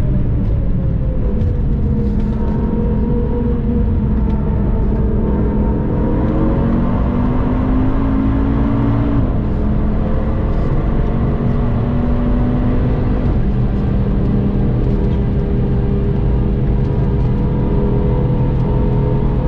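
2013 Audi TT RS's tuned turbocharged five-cylinder engine heard from inside the car over steady road and tyre rumble. Its note falls as the car brakes hard for a corner, then climbs again as it accelerates away.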